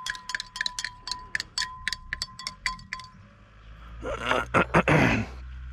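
Metal teaspoon clinking against a drinking glass of water, several light strikes a second with the glass ringing, stopping about three seconds in. A second or so of louder noise follows near the end.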